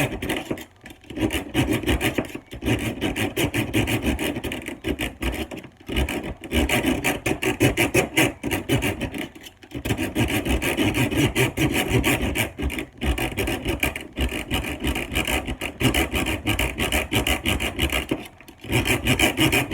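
Serrated knife blade drawn back and forth through a Block knife sharpener held down on a table: a rapid rasping of steel on the sharpener, in several runs of quick strokes with brief pauses between them.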